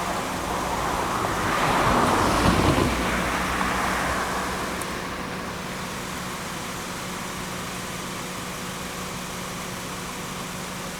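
A motor vehicle drives past close by, its tyre and engine noise swelling to a peak about two and a half seconds in and then fading away. A steady low hum runs underneath.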